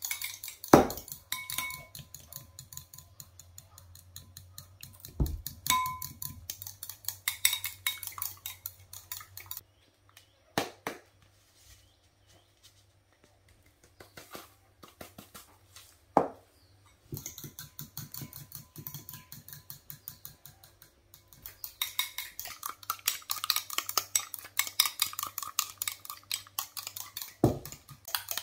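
Metal fork beating mayonnaise in a glass bowl: rapid, steady clinking of the fork against the glass. It pauses for several seconds around the middle, where only a few single knocks sound, then starts again, with a few harder knocks against the bowl along the way.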